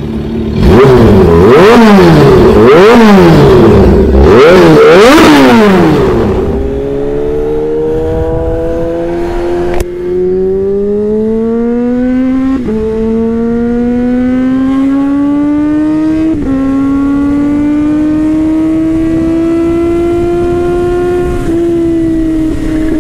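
Kawasaki Z H2's supercharged inline-four engine through an SC-Project exhaust, revved hard up and down several times in quick succession. It then pulls in long, rising runs, dropping in pitch at each upshift about four times.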